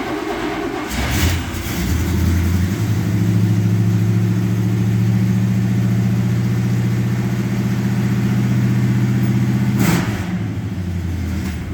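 Buick 350 V8 in a 1970 Buick GS starting after sitting a month in the cold: a change about a second in, then the engine runs at a steady raised speed for several seconds before dropping back after about ten seconds.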